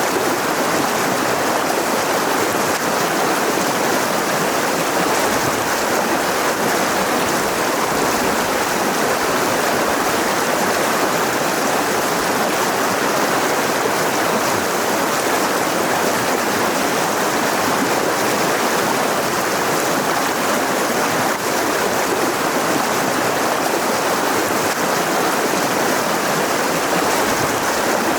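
Mountain river flowing over rocks, a steady rushing of water with no change in level.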